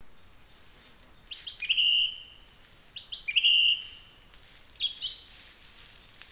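A small songbird singing three short phrases, each a quick run of high notes, some ending in a held whistle.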